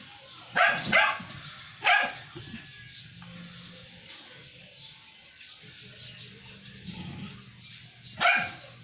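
A dog barking: two barks in quick succession about half a second in, another about two seconds in, and one more near the end, over a low steady hum.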